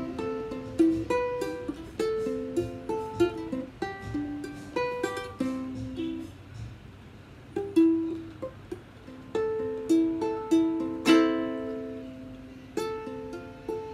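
Solo ukulele, plucked note by note in a melody, with one full strummed chord about eleven seconds in.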